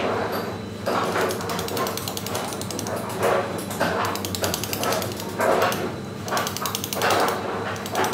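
Steel chisel driven into stone by a round carver's dummy mallet: a run of quick light taps with heavier strikes about every second, over a steady low hum.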